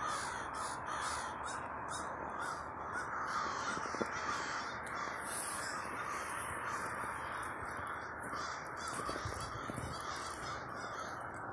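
A large roost of crows cawing all at once: many overlapping caws merge into a steady, unbroken din.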